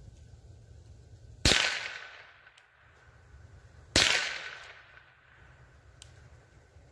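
Rossi RS22 semi-automatic .22 LR rifle firing two single shots about two and a half seconds apart. Each sharp crack trails off over about a second.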